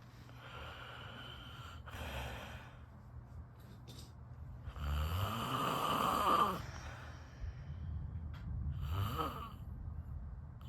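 A person snoring in their sleep, three breathy snores a few seconds apart. The middle one is the longest and loudest, with a falling pitch.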